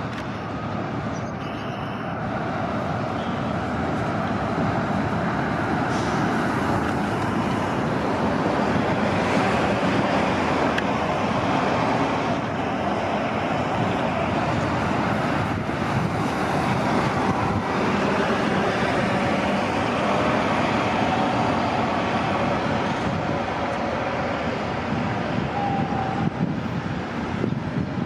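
City transit buses running, a steady engine and traffic noise that grows louder over the first several seconds and then holds.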